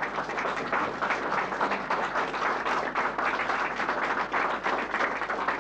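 Audience applauding: many people clapping at once, steadily.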